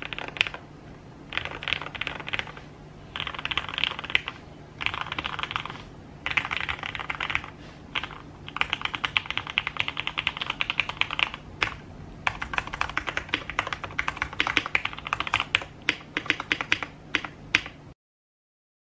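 Typing on a Tofu60 custom 60% mechanical keyboard with an FR4 plate, lubed KS-3x47 Black switches and foam-filled case: runs of fast keystrokes lasting a second or two, broken by short pauses. The sound cuts off abruptly near the end.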